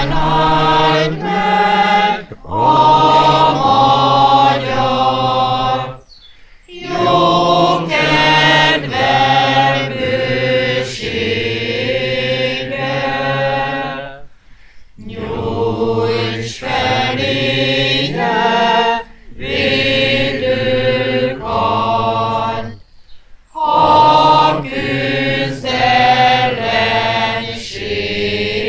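Unaccompanied singing: a slow, chant-like melody in phrases a few seconds long, with brief pauses between them.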